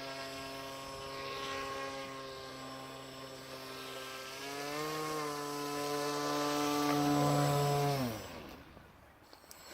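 RC airboat's electric motor and pusher propeller running at steady throttle, then speeding up with a rising whine about halfway through. It is loudest shortly before the throttle is cut, when the pitch drops quickly as the prop winds down, followed by a brief small blip of throttle near the end.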